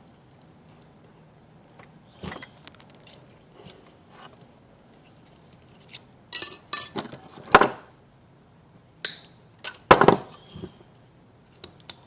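Thin steel transformer laminations being pried loose from their varnish with a small hacksaw-blade knife: scattered metallic clinks and short scrapes, busiest around the middle, with the sharpest clinks about ten seconds in.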